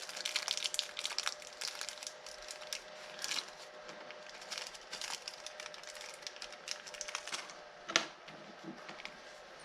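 Plastic crinkling and rustling with many small clicks as pieces of heat-shrink tubing are sorted out of their packaging, ending in one sharp knock about eight seconds in.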